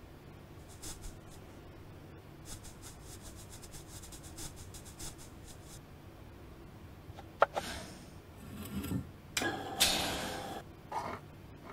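Cement tile making. First comes soft, light scraping and rubbing at the steel mould. About seven seconds in there is a sharp metal click, then a louder stretch of rushing noise and knocks as the hydraulic tile press works on the mould.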